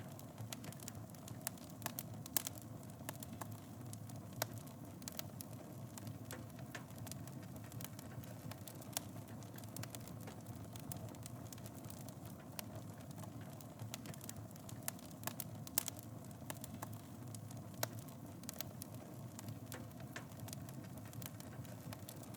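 Wood fire burning in a fireplace: a steady low rumble of flames with frequent irregular crackles and a few sharper pops.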